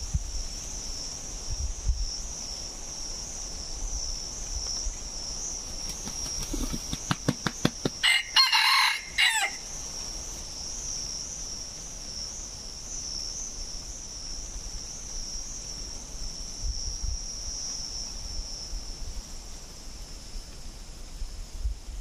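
A junglefowl-type rooster crows once, loudly, about eight seconds in. The crow lasts about a second and a half and is preceded by a quick run of wing-flaps. A high, steady, pulsing buzz runs in the background.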